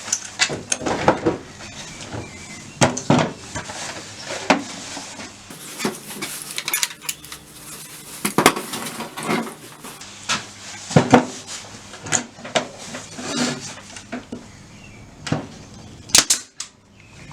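Irregular metallic clinks, taps and knocks from handling a small air brad nailer and screwing a quick-release air fitting onto it, with a stretch of hiss about six seconds in.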